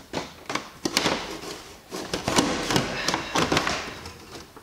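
Plastic coffee-grounds container being pushed into a Melitta bean-to-cup coffee machine: irregular taps and knocks of plastic on plastic, with rubbing as it slides into place.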